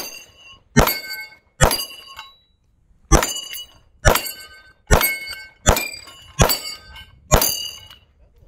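Flux-braced pistol-caliber carbine firing nine shots at steel targets, each shot followed by the ring of a struck steel plate. The shots come a little under a second apart, with a longer pause after the third.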